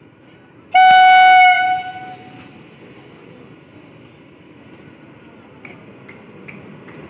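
Indian Railways ICF electric multiple unit (EMU) local train sounding one short, very loud horn blast about a second in, which rings on briefly. It then rolls slowly along the platform with a low rumble.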